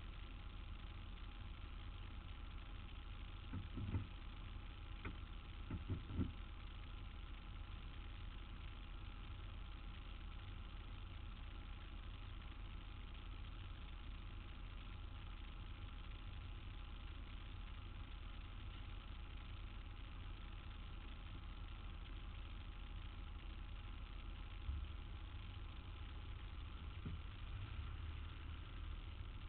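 Steady low hum of street traffic with idling engines, broken by a few short knocks about four and six seconds in and once more near twenty-five seconds.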